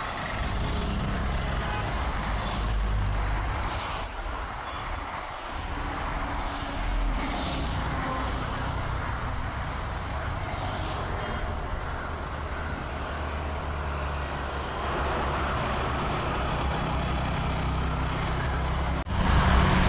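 Highway traffic: cars and trucks passing one after another with a steady tyre and engine rumble that swells and fades. Near the end it cuts out for a moment and comes back louder.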